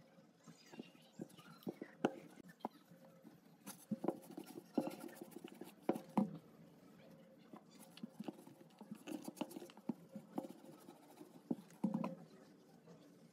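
Electric clothes iron and fabric handled on a padded table while seams are pressed open: irregular soft knocks and taps with light fabric rustling, the loudest knocks about six seconds in and near the end.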